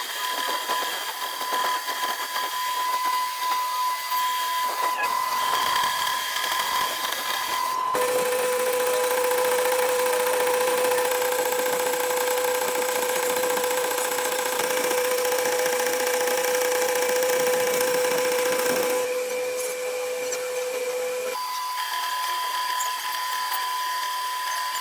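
Metal-cutting machine tool, most likely the lathe, running and cutting with a steady whine over a hiss; the whine's pitch changes suddenly about 8 seconds in and again near the end as the shots change.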